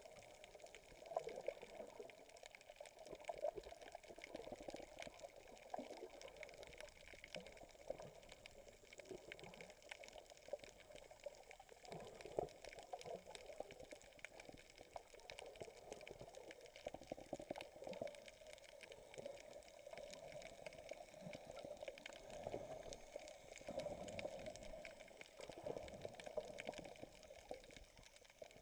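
Faint, muffled water sloshing heard through an underwater camera, with a steady fine crackling throughout.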